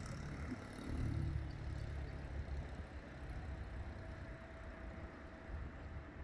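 Diesel locomotive engine running as the locomotive moves away, a low rumble that swells about a second in and then slowly fades.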